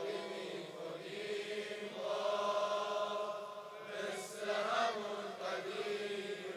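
Crowd of mourners chanting a noha refrain together in a Muharram mourning gathering: many voices blended into a soft, smeared chant.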